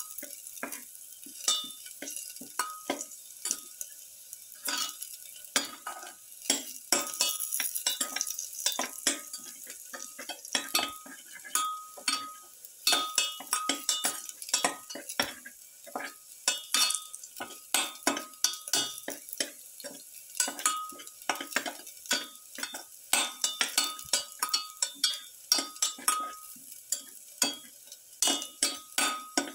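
A utensil repeatedly scraping and knocking against a stainless steel pan as garlic cloves and shallots are stirred, many strokes leaving a short metallic ring, over a light sizzle of the garlic frying in oil.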